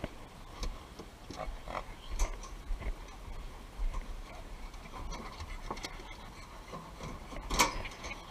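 A hunting dog snuffling and moving through scrub: scattered short rustles and clicks over a low rumble, the loudest a sharp rustle near the end.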